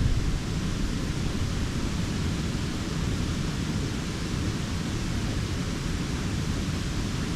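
Wind buffeting the microphone: a steady, choppy low rumble over an even hiss.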